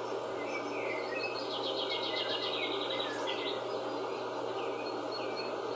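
Small birds chirping, with a rapid trill about a second and a half in and repeated short swooping chirps near the end, over a steady background hiss.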